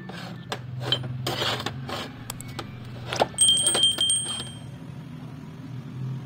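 Steel motorcycle crankshaft parts clinking and tapping against a steel workbench as they are handled with pliers. One knock about three and a half seconds in leaves a brief, high metallic ring. A steady low hum runs underneath.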